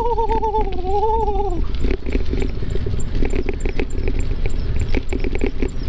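An animal's long wavering call that sinks slightly in pitch and ends about a second and a half in. After it come rapid scattered clicks and knocks over a steady low rumble.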